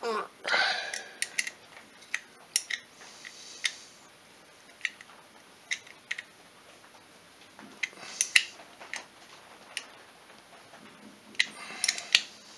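Irregular sharp metal clicks and clinks of a hand wrench and parts being worked on an engine's cylinder head. A short scraping rustle comes about half a second in, and a quick cluster of clicks comes near the end.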